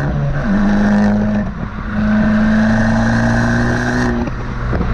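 Abarth 595 Competizione's 1.4-litre turbocharged four-cylinder through its Record Monza exhaust, heard close to the tailpipes under hard acceleration. The loud engine note climbs in pitch and breaks off briefly twice, about a second and a half in and again near the end.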